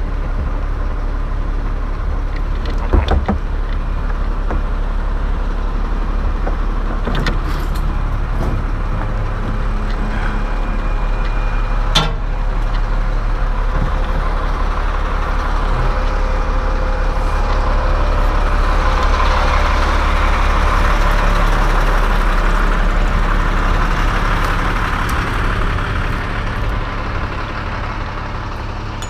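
A steady low motor hum with a rushing noise that swells and fades about two-thirds of the way through, and a couple of sharp knocks.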